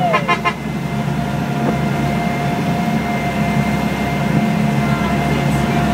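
Speedboat's engines running steadily at speed, a constant low hum with a fixed higher tone, over the rush of water.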